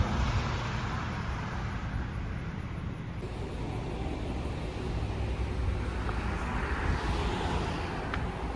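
Steady road and engine noise inside a moving car: a low rumble with tyre hiss.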